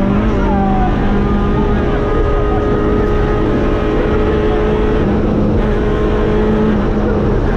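Citroën rally car's engine heard from inside the cabin, running hard at stage pace under load. Its pitch shifts shortly after the start and again about five seconds in.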